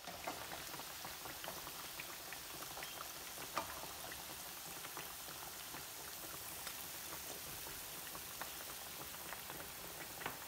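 Battered beef tikka pieces deep-frying in hot oil in a frying pan: a steady sizzle with many small crackles and pops, one pop standing out about three and a half seconds in.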